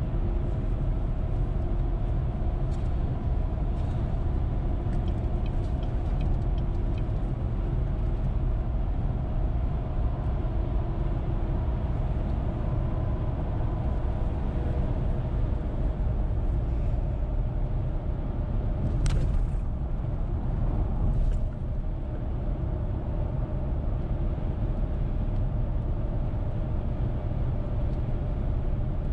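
Car driving at highway speed: a steady low rumble of road and engine noise with a faint hum. A sharp click comes about nineteen seconds in.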